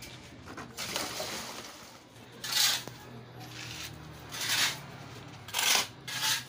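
Steel shovel scraping across concrete ground while dry-mixing a pile of cement and sand for mortar, in several short scraping strokes, mostly in the second half.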